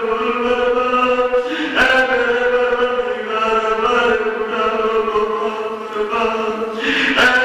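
Male voice chanting a mournful majlis recitation (soz or noha) into a microphone in long, held notes, with a short break about two seconds in and again near the end.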